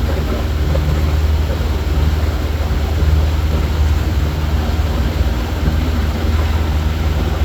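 A small ferry boat's engine running steadily under way: a low, even drone.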